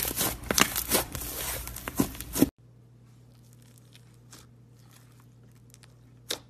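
Thick orange slime squished between pressing hands, a rapid run of sticky pops and crackles. About two and a half seconds in it gives way to much quieter soft clicks as fingers poke white slime in a plastic tub, with one sharper click near the end.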